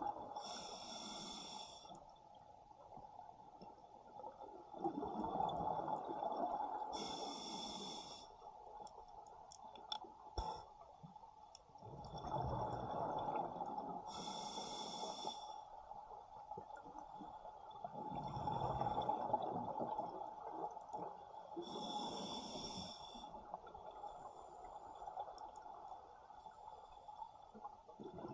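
Scuba diver breathing underwater through a regulator: a short hissing inhale, then a longer rush of exhaled bubbles, repeating about every seven seconds, four breaths in all.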